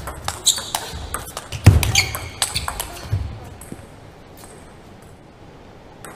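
Table tennis rally: the celluloid-type ball clicking rapidly off rubber paddles and the table, with a loud thump about a second and a half in and short squeaks of shoes on the court floor. The rally ends about three seconds in, leaving the quiet hiss of a large hall.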